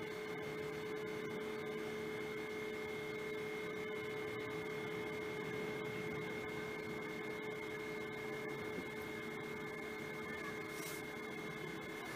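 Steady machinery hum aboard a vessel, an even drone with two constant tones over a light rushing noise, and one faint click near the end.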